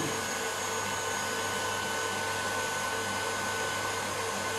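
Electric stand mixer running steadily, its whisk beating meringue in a steel bowl: an even motor whir with a few fixed tones.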